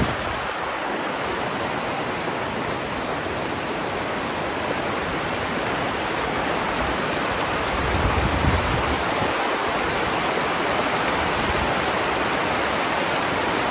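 A river carrying flood runoff after rain, its water rushing steadily. About eight seconds in there is a brief low rumble over it.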